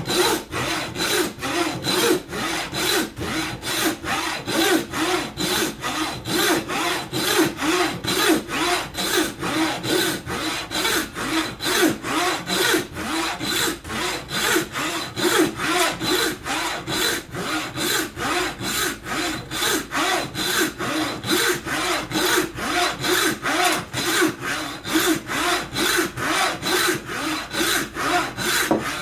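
A hand-powered saw with a long wooden frame ripping a board clamped upright, cutting in steady back-and-forth strokes about two a second.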